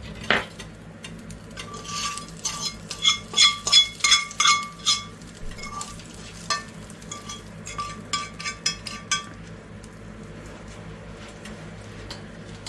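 Metal utensil clinking and scraping repeatedly against a metal cooking pot, ringing briefly with each strike, as browned meat is moved over a faint frying sizzle. The strikes come thick around the middle, then thin out and stop a few seconds before the end.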